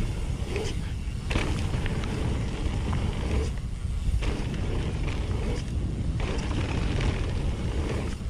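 Mountain bike, a Nukeproof Mega 290, riding a rough downhill trail: a steady low rumble of wind buffeting the GoPro microphone, with the bike rattling and knocking over bumps throughout. Twice, briefly, the rattle eases off.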